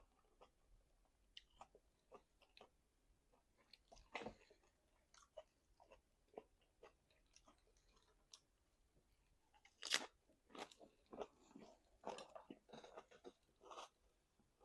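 Close-miked chewing of meat: scattered wet mouth clicks and smacks, with louder ones about four and ten seconds in and busier chewing after the second.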